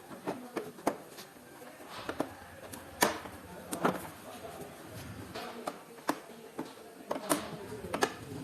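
Irregular sharp knocks and clicks of hand work in a workshop, the loudest about three seconds in.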